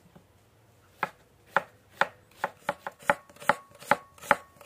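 Large kitchen knife slicing an onion into half-rings on a wooden cutting board: sharp knocks of the blade hitting the board, about two a second, starting about a second in and getting slightly quicker.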